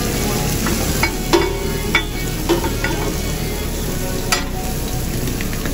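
Shrimp and meat sizzling on a flat-top griddle, with a steady frying hiss. A cooking utensil scrapes and taps against the griddle several times.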